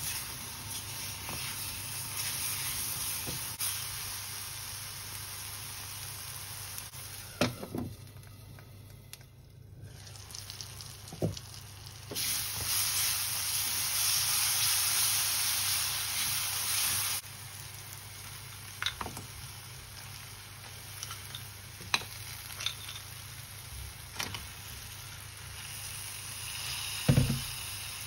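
Crab masala sizzling in a frying pan and being stirred, with a steady hiss and scattered sharp knocks of the spoon against the pan. The sizzle dips for a moment, then grows louder for a few seconds in the middle.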